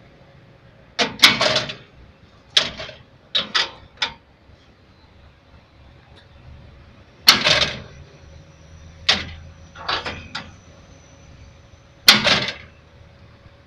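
Sharp clanks and rattles in irregular bursts, from the steel levers and linkage rods of a homemade scrap-metal tractor being worked by hand.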